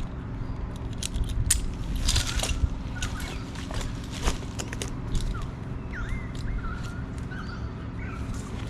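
Scattered clicks and rustles over a low rumble of wind on the microphone, with a faint steady hum, and a few short bird chirps about six to seven seconds in.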